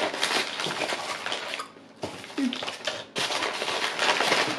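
Crinkling and rustling of plastic snack wrappers and tissue paper as a hand rummages through a packed snack box, with a short pause about halfway.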